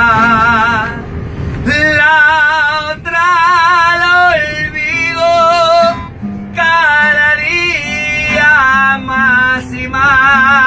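A man singing at full voice, holding long notes with a wide vibrato, to his own strummed acoustic guitar.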